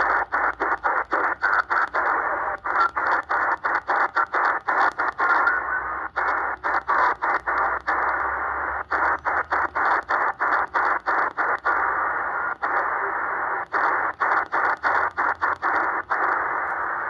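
XHDATA D-808 shortwave receiver in SSB mode giving a steady rush of band noise through its narrow voice filter, cut by many brief dropouts in quick runs as the tuning is stepped across the 40 m amateur band.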